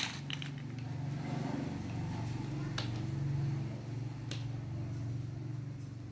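Plastic screw caps being twisted onto honey-filled plastic bottles, giving a few sharp clicks over a steady low hum.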